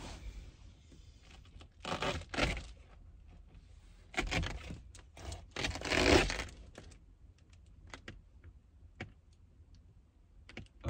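Crinkling and rustling of a foil bubble-insulation window cover being pulled off a truck topper's window, mixed with the rustle of a nylon sleeping bag: three bursts, the loudest about six seconds in, followed by a few light clicks.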